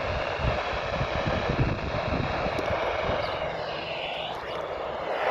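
Steady hiss of FM radio static from a weather-radio receiver on a weak, distant NOAA Weather Radio signal. The signal flutters in and out, with only faint traces of the broadcast left in the noise.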